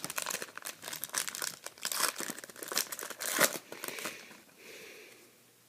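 Crinkling and crackling of a trading-card pack's wrapper being handled and torn open, with dense crackles for about four seconds before it dies down.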